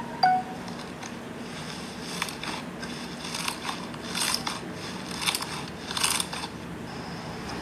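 Slime being played with by hand: irregular short crackling pops about a second apart over a low steady hum.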